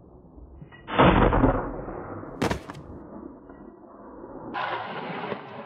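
Two gunshots. The first, about a second in, is loud and has a rumbling tail that dies away over about a second. The second is a short sharp crack about a second and a half later.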